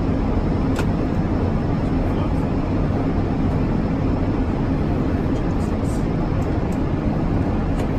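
Steady rumble and rush of engine and airflow noise heard in an airliner's cockpit in flight, with a faint click about a second in.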